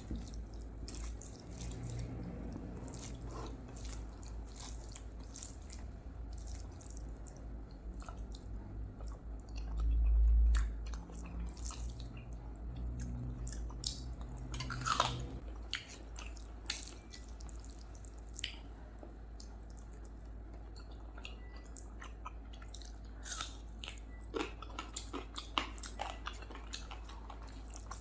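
Close-miked eating sounds: wet chewing and mouth clicks while eating rice with curry and rasam, with scattered small sharp clicks. A brief louder low swell comes about ten seconds in.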